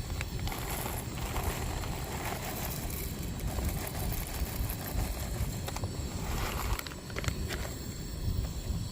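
Wind buffeting the microphone in a steady low rumble, with a few handling clicks near the end.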